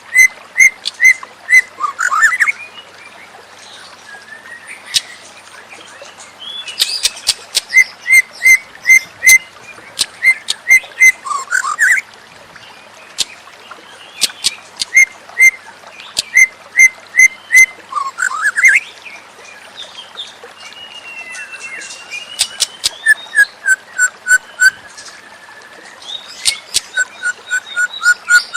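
White-rumped shama singing in loud whistled phrases: runs of one clear note repeated about three times a second, each run broken by quick upward-sweeping notes. Near the middle comes a wavering whistle, then a lower descending run, with sharp clicking notes mixed in.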